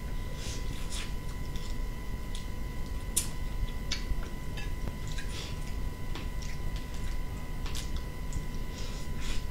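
Cooked whole shrimp being peeled by hand and chewed, with scattered crisp crackles and clicks as the shells break. A steady thin high tone and a low hum run underneath.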